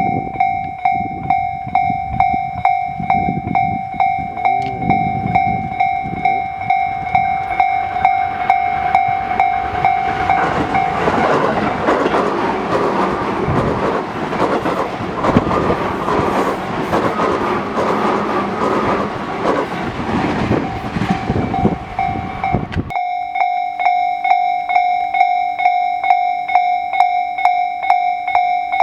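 Japanese level-crossing alarm ringing its repeating two-note tone at a steady pace while a Tobu Tojo Line train passes through the crossing from about ten seconds in, its wheels clacking over the rail joints. The train noise cuts off abruptly about two-thirds of the way through, and the crossing alarm rings on alone.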